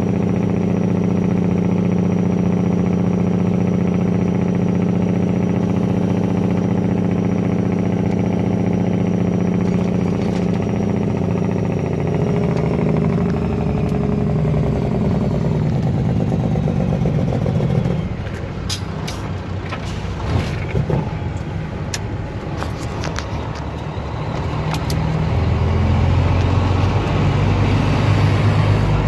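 Semi-truck's diesel engine running steadily as heard inside the cab, its note falling as the truck slows about twelve seconds in. It then goes quieter, with a few sharp clicks, and the low engine sound rises again near the end as the truck pulls on.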